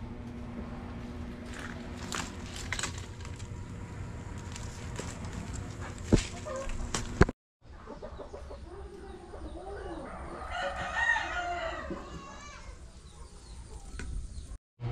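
A rooster crowing once, about ten seconds in, a single drawn-out call of around two seconds. Before it come a few sharp clicks and knocks.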